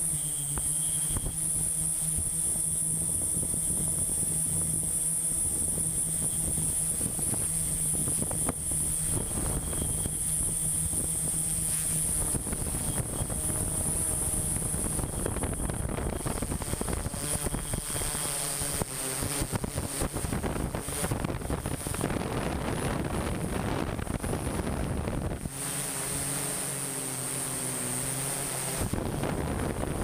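Small camera drone's propellers and motors humming steadily with a high whine. Rushing wind noise on the microphone thickens about halfway through, and the low rumble drops away for a few seconds near the end.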